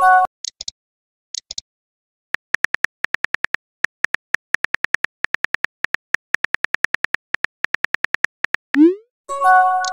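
Chat-app sound effects. A short chime as a message bubble pops in, then a long run of rapid, evenly spaced keyboard clicks as a message is typed, then a rising whoosh as it is sent and another chime near the end.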